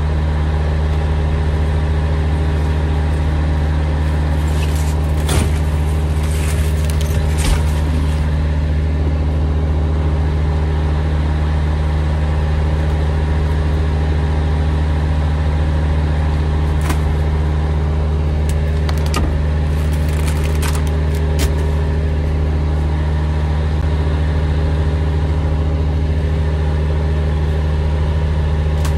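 Semi-truck diesel engine idling steadily, heard from inside the cab as a constant low hum. A few short clicks and knocks come through in the first third and again past the middle.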